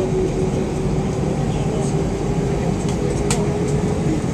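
Steady cabin noise of an Airbus A320 taxiing on the ground, engines running with a constant hum and a steady tone. A single sharp click about three seconds in.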